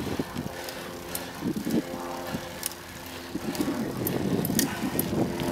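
A motor vehicle's engine running steadily at low speed, with wind and road noise.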